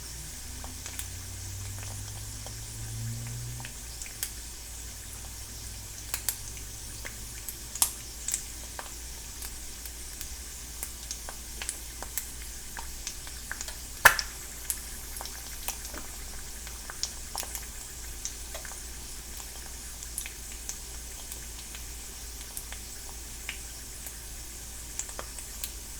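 Egg frying in a T-fal non-stick pan: a steady high sizzle with scattered crackling pops, one louder pop about halfway through.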